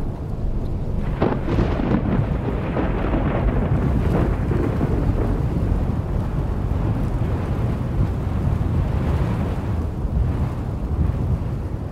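Thunder rumbling over steady rain. A thunderclap breaks about a second in and draws out into a long low rumble.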